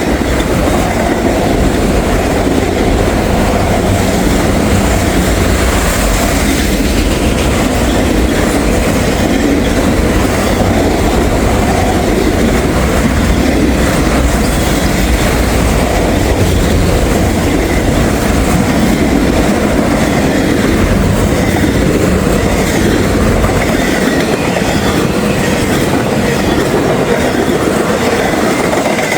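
Freight train cars rolling past at speed close by: a loud, steady rumble and rattle of steel wheels on the rails.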